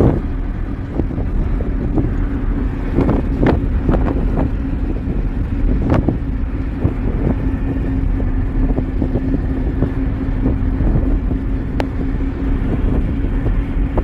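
Wind rushing in through an open car window while driving, buffeting the phone's microphone with a heavy rumble over a steady low hum, broken by occasional sharp knocks.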